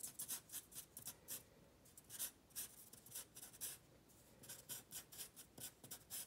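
Felt tip of a Sharpie permanent marker scratching across paper in quick, short up-and-down strokes, several a second, with a brief pause about four seconds in.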